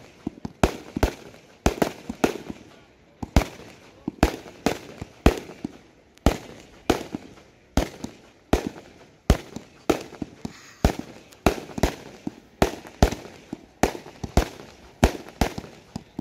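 Da Wei Detonator 196-shot compound firework cake firing a steady run of shots: sharp bangs about two or three a second, with smaller pops in between.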